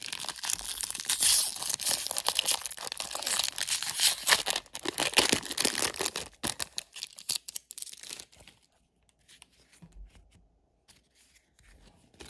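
Plastic foil wrapper of a Topps 2021 Series 2 baseball jumbo pack being torn open and crinkled, a loud, dense crackle for about six seconds. It then goes almost quiet, with a few faint clicks as the cards are handled.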